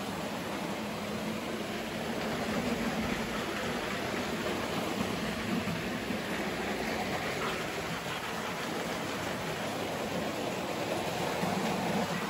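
Model electric trains running around a layout: a steady rumbling whir of wheels and motors on the track.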